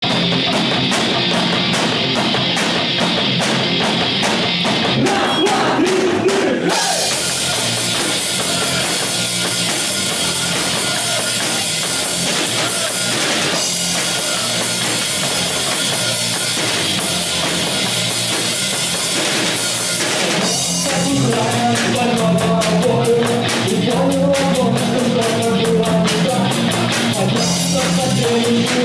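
Live rock band playing: electric guitars and a drum kit with a steady beat. A voice comes in singing about twenty seconds in.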